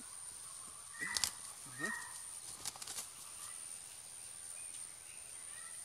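Hens giving two short calls, rising in pitch, about a second and two seconds in, followed by a few light clicks and rustles. A steady high-pitched whine runs under it all.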